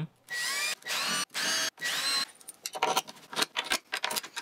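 Cordless drill driving the mounting screws of a swivel caster in four short bursts, the motor whine rising in pitch as it spins up each time. It is followed by scattered clicks and rattles of hardware being handled.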